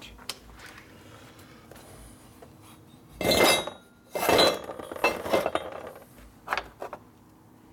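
Metal clanking and clinking as the freshly welded aluminum panhead cylinder head is handled on a steel bench: two loud clanks about three and four seconds in, then a few lighter knocks.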